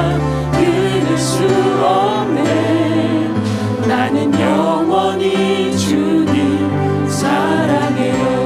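Music: a church praise team of male and female singers singing a Korean worship song into microphones, over sustained instrumental accompaniment.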